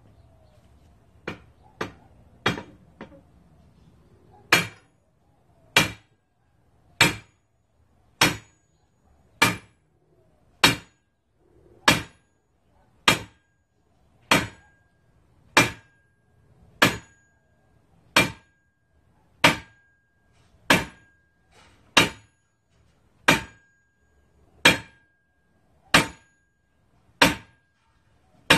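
Sledgehammer blows on a steel knockout pipe, driving the shaft out of a Porsche 944 torque tube. A few lighter knocks are followed by about twenty heavy, evenly paced strikes a little over a second apart, each clang leaving a brief metallic ring.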